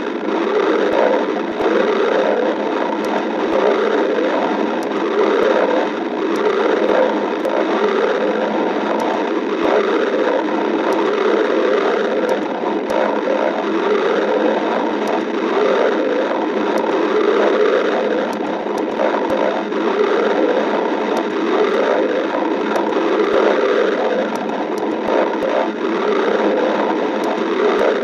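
Stomach growling: continuous, uneven gurgling without a break, with a few faint clicks.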